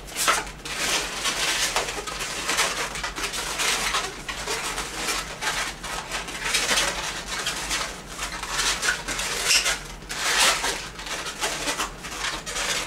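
Latex 260 modelling balloons squeaking and rubbing against each other as they are twisted and worked into shape by hand.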